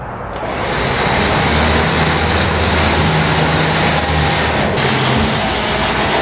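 Electric winch running under load, its motor and gears whirring steadily as it drags a car up onto a trailer.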